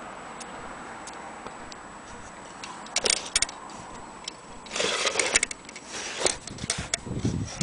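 Clicks from a 400-day anniversary mantle clock: a few faint single clicks, then clusters of sharp metallic clicks and rattles about three seconds in and again from about five seconds in.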